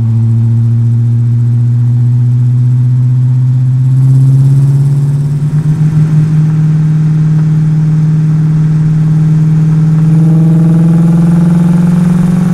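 1970 Pontiac Trans Am's Ram Air III 400 V8 running loud under a steady pull, its note climbing gradually as the car gains speed. It rises more quickly about four seconds in and wavers briefly just after.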